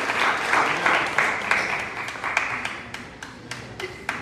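Church congregation's applause dying down: dense clapping thins into a few scattered claps.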